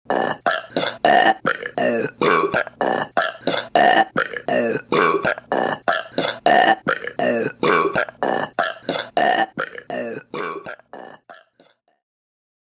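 Women's burps in a rapid string of short belches, about three a second, in a pattern that seems to repeat every few seconds, fading out near the end.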